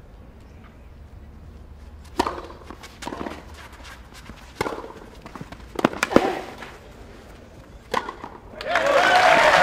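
A tennis rally: the ball is struck by rackets and bounces on the court, making six sharp pops spread over about six seconds. About a second before the end, spectators break into loud applause as the point ends.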